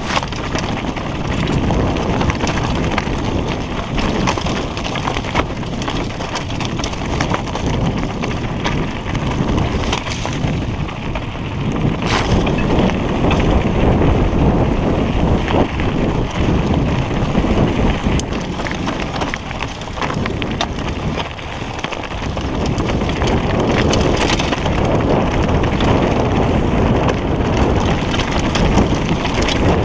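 Mountain bike descending a rocky singletrack: continuous clatter and rattle of the bike and its tyres over stones and ruts, dense noise with many short knocks.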